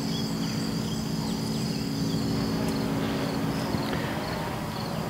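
Insects chirping over a steady low hum.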